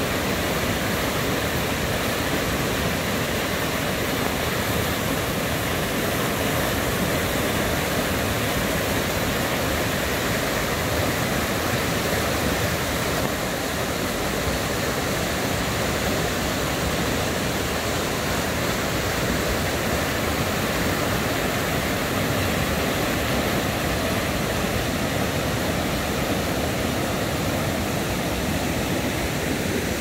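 Mountain stream pouring over a small rocky cascade into a pool: a steady, even rush of water.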